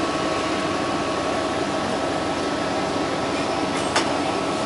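Steady hum inside a New Flyer XD60 articulated bus standing at a stop, mostly its air-conditioning blowers, with a faint steady whine. A single sharp click about four seconds in.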